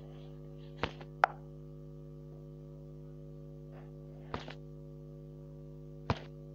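A steady hum with four short knocks, the loudest a little over a second in.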